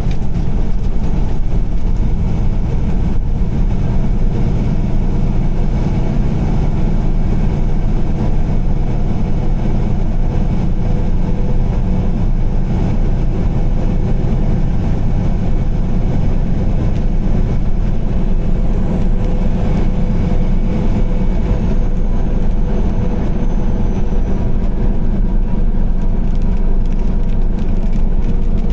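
Car driving at highway speed: a steady low rumble of tyres and engine.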